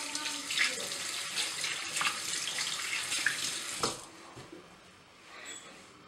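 Tap water running into a stainless steel kitchen sink, with a few light knocks, then shut off about four seconds in.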